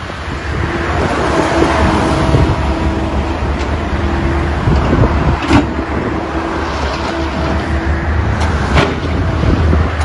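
Digging machine's diesel engine running steadily at a construction site, with a few sharp metal clanks about five and a half seconds in and twice near the end.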